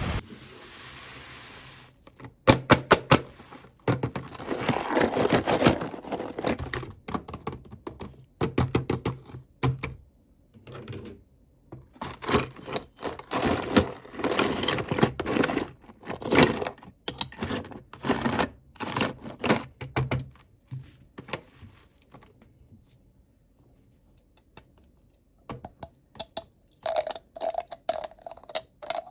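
Toy packaging being handled and opened: a busy run of clicks, crinkles and tearing sounds, which falls quiet about two thirds of the way through and picks up again with a few clicks near the end.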